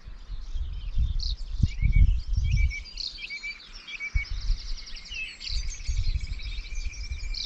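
Dawn chorus: several birds singing at once, with chirps and whistled phrases overlapping and a fast trill near the end. A low rumble comes and goes underneath, loudest about two seconds in.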